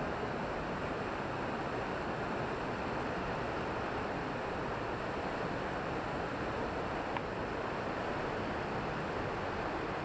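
Steady rushing water of Smokey Hollow Falls and the shallow rapids over the rocks below it, an even, unbroken sound.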